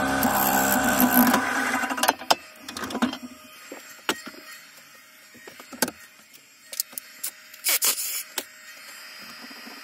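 Wood lathe running with a turning tool cutting the spinning yew log, the noise stopping about a second and a half in. After that, scattered sharp knocks and clicks over a faint hum.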